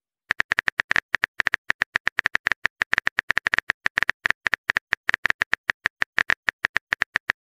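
Phone keyboard typing sound effect: a rapid, even run of short clicks, about eight a second, as a text message is typed out.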